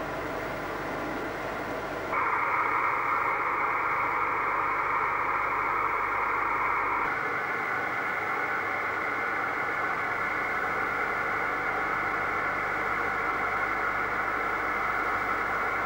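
Amateur radio receiver hiss from a speaker: a steady band of static with no signal heard. It jumps louder about two seconds in and changes tone around seven seconds.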